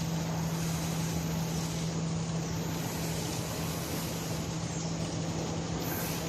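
A train running steadily: a constant low hum over an even rumble and hiss.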